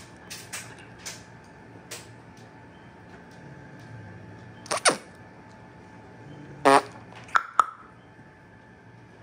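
Dog chewing a bone: scattered light clicks, then two loud sharp cracks about five and seven seconds in, followed by two quick clicks.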